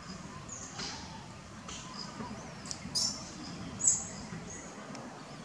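Outdoor ambience with a steady hiss and a few short, high-pitched chirps; the loudest come about three and four seconds in.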